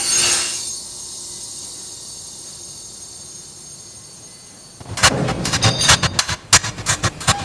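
A single loud boom whose sound fades slowly over about four and a half seconds, then a dense, rapid clatter of sharp clicks and knocks starts abruptly.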